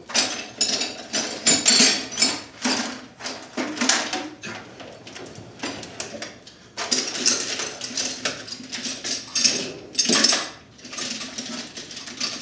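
Metal hand tools clattering and clinking as someone rummages through a toolbox looking for sockets. The jangling scrapes come in quick irregular bursts with a couple of brief pauses.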